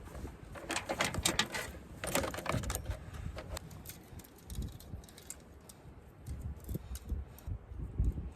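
Chainsaw chain being handled and fitted back onto the bar after it was thrown: irregular metallic clinks and rattles of the chain links.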